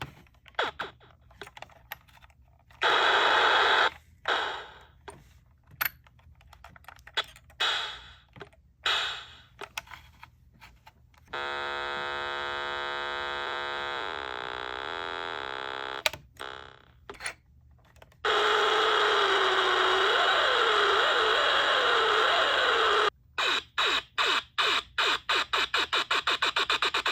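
A 1980 electronic sound-effects gadget playing a string of synthesized effects. First come short bursts of hissing noise that die away. About eleven seconds in, a steady buzzy tone sounds for several seconds. From about eighteen seconds there is a long hiss with a wavering tone under it, and near the end a rapid stutter of short pulses.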